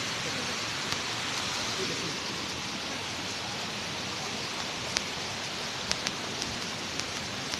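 Steady rushing of a waterfall: an even, unbroken hiss of falling water, with a few faint clicks.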